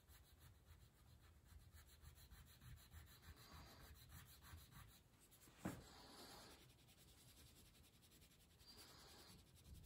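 Wax crayon rubbing faintly on paper in short back-and-forth colouring strokes, with a single light tap a little past halfway through.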